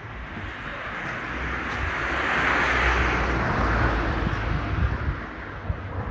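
A vehicle passing by: its noise swells to a peak about three seconds in and then fades away.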